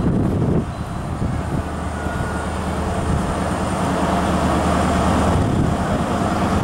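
Class 43 HST power car's diesel engine running with a steady low drone as the train comes slowly towards the crossing, growing slightly louder.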